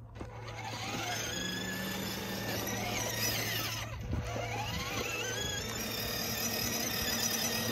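Electric drive motors and gearbox of a 12V ride-on toy car whining as it drives, the whine rising in pitch a couple of times as the car picks up speed, over a steady low hum.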